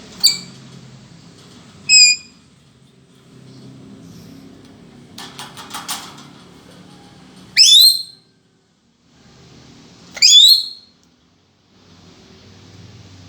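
Lory (nuri parrot) calling: short sharp calls near the start and at about two seconds, a quick run of clicks around five to six seconds, then two loud rising whistled calls about eight and ten seconds in.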